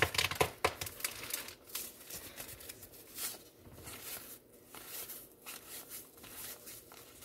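Wax-paper card pack wrapper crinkling and baseball cards rustling as they are handled. A few sharp crackles come in the first second, then fainter scattered rustling.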